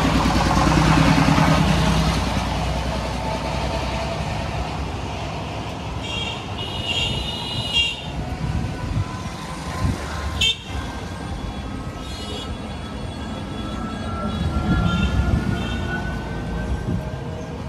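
Road traffic: a motor vehicle engine running close by, loudest at the start, then horns tooting several times, with a couple of sharp knocks in between.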